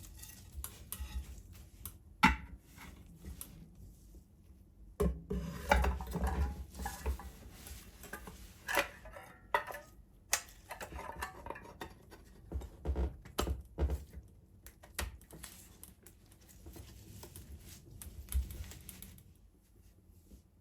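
Irregular clinks, knocks and light clatters of small metal parts being handled and set down on a workbench, with a sharp knock about two seconds in and busier clattering around five to seven seconds in.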